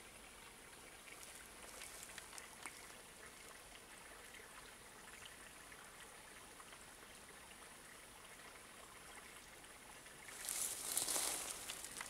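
Faint, steady outdoor background hiss with a few light ticks. About ten seconds in comes a louder rustling scrape lasting about a second.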